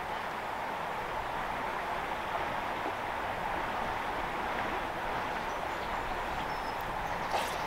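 Steady rushing outdoor background noise, with a few faint bird chirps and a brief click near the end.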